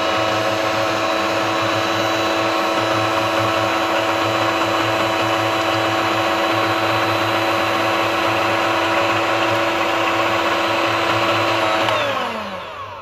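Electric hand mixer running at one steady speed, its twin beaters whisking a thin ground-rice and egg batter in a stainless steel bowl. Near the end it is switched off, and the motor whine falls in pitch and fades as it winds down.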